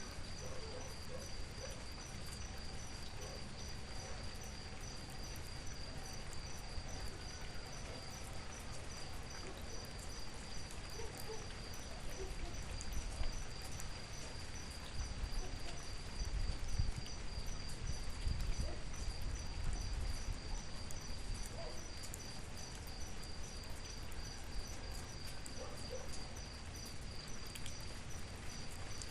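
Steady rain hiss with a cricket chirping in a fast, even pulse at a high pitch, and faint scattered bird calls. A low rumble swells in the middle and fades again.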